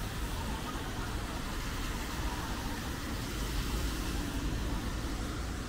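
Steady rain hiss on a city street over a low rumble of a motor vehicle.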